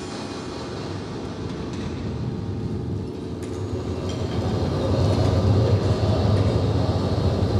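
Percussion ensemble: the ring of a big hit dies away, then a low rumbling roll swells louder over the last few seconds, with a few scattered ringing mallet notes.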